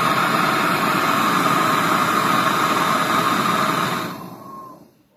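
Twin-barrel LPG turbo torch burning with its gas opened wide: a loud, steady hiss of the two flames. It fades out about four seconds in, gone within a second.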